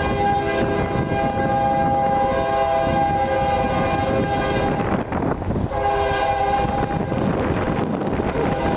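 CSX freight locomotive's air horn sounding the grade-crossing warning as the train approaches: one long blast of about five seconds, a shorter blast after a brief break, and another starting near the end, several tones sounding together. Strong wind buffets the microphone throughout.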